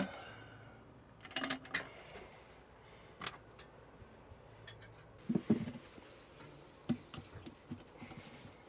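Scattered light clicks and taps as the plastic mounting bolts of a cushioned toilet seat are dropped into the hinge holes and handled, with quiet pauses between.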